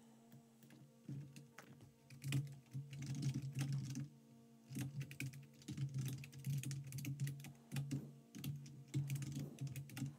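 Typing on a computer keyboard: runs of quick keystrokes with brief pauses between them.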